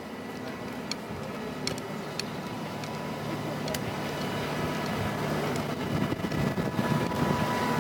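A motor vehicle's engine running steadily, growing gradually louder as it draws nearer.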